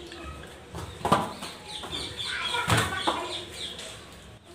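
Birds calling in short falling chirps in the background, with two sharp knocks about a second in and nearly three seconds in.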